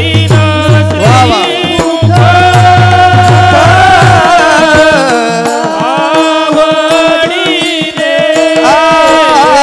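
Marathi kirtan devotional music: a melody sung or played over a steady held drone, with regular hand-drum beats that stop about four seconds in.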